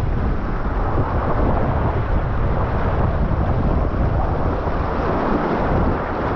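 Whitewater rapids rushing and splashing around a kayak, loud and close, with the water and wind buffeting the microphone into a steady roar of noise.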